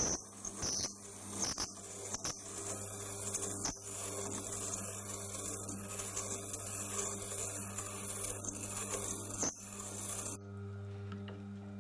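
A twist drill point being ground on the slowly turning, water-cooled stone of a Tormek grinder in a DBS-22 jig, cutting the secondary facets: a rough scraping rasp with a few sharp knocks over the grinder's steady motor hum. The grinding stops abruptly near the end, leaving the hum.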